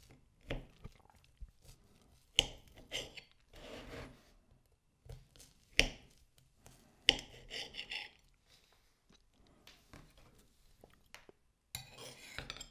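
Cutlery clicking sharply against a plate a few times, with scraping and crunching as a cheesecake's firm cookie-crumb base is cut and eaten.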